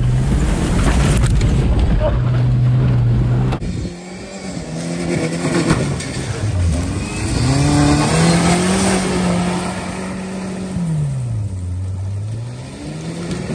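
Ford Ranger pickup's engine driven hard off-road. For the first few seconds it is heard from inside the cab as a steady high-revving note under heavy cab and road noise. Then it is heard from outside, its pitch rising and falling with the throttle as the truck drives along a dirt track.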